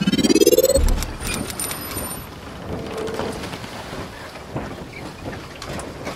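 Logo intro sound effect: a rising synthetic sweep that ends in a low boom about a second in, then a steady crackling hiss with scattered clicks.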